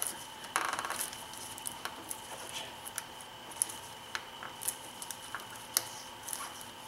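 Plastic oil filter housing cap on a BMW engine being unscrewed by a gloved hand: scattered small clicks and rubbing of plastic and glove, with a brief rapid rattle about half a second in.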